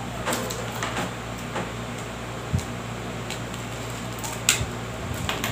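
Handling of small plastic packaging during an unboxing: scattered light clicks and taps, with a sharper knock about two and a half seconds in and a sharp click about four and a half seconds in, over a steady low hum.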